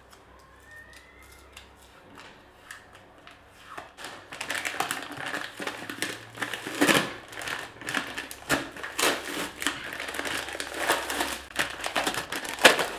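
A self-adhesive vinyl tile sticker being peeled off a wall and bunched up in the hand, crinkling and crackling irregularly. It is quiet at first, and the crackling starts about four seconds in.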